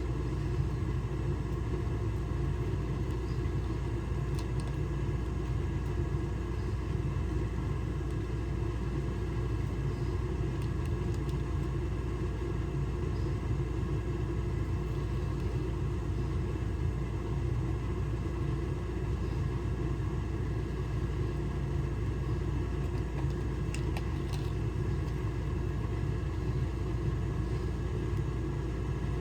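Steady low rumble with a constant hum over it, unchanging throughout, with a few faint clicks.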